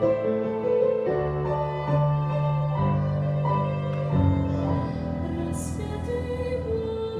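A slow Christian song performed with sustained keyboard chords and singing, the notes held and changing about once a second.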